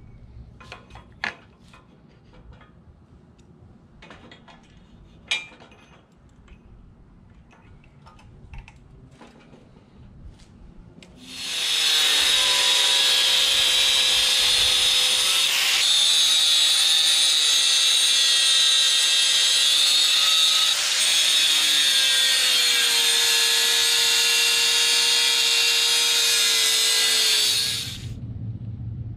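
A few light clicks and knocks, then about a second after ten seconds in an angle grinder starts up and grinds a steel tube for about sixteen seconds. It gives a loud, steady high whine whose pitch wavers as it bites, then stops suddenly near the end.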